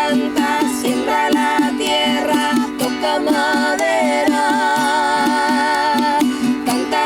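Music with plucked strings over a steady low drone, with a sung or held melody line that wavers.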